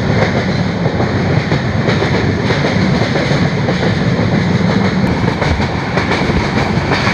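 Train running along the track, heard from aboard: a steady loud rumble and rattle of wheels on rails with irregular clacks.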